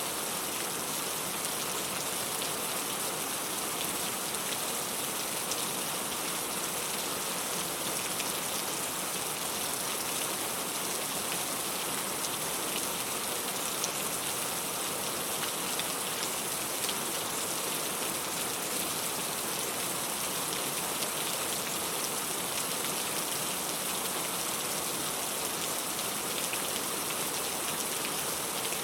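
Steady rain falling: an even, unbroken hiss with a fine patter of individual drops.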